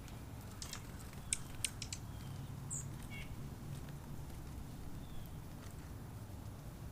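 Outdoor ambience with a steady low rumble, a quick run of sharp clicks about a second in, and one brief high bird chirp near the middle.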